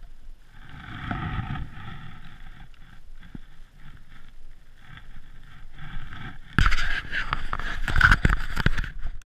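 Handling noise from a body-worn action camera: a fainter rustling, then loud rustling and knocking against the microphone that starts suddenly about two-thirds of the way through.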